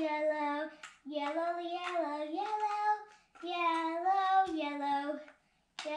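A child singing to herself, unaccompanied, in held, gliding phrases of about two seconds each with short breaks between.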